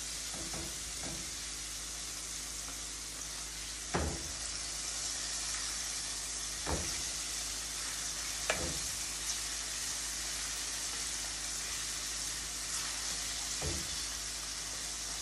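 Flour-coated chicken wings deep-frying in a pot of oil, a steady sizzle. Metal tongs knock against the pot four times as the pieces are turned.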